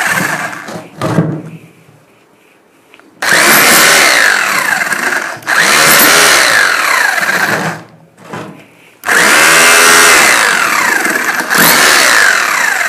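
Rotary hammer drill in hammer mode driving a flat chisel bit into a clay brick, chipping it apart. It runs in several loud bursts of two to three seconds, with short pauses between them.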